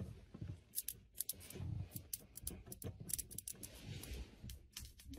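Faint, irregular clicks and rustles, like a phone being handled and moved around.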